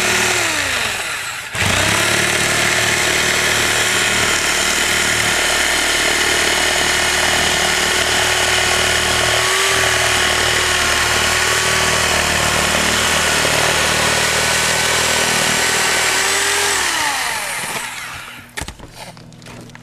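Corded reciprocating saw cutting a round hole through asphalt roof shingles and the wooden decking beneath. It stops and restarts about a second in, then runs steadily and winds down shortly before the end. A few sharp knocks follow.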